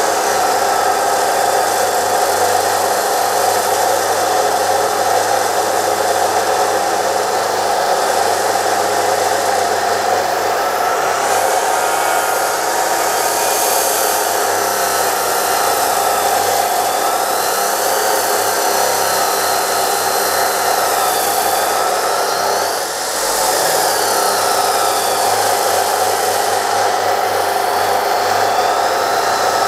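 DeWalt D28730 14-inch abrasive chop saw, its 2300 W motor running under heavy load as the cut-off wheel grinds through thick steel. It is a continuous roar of the motor straining but not stalling, and it briefly eases about 23 seconds in.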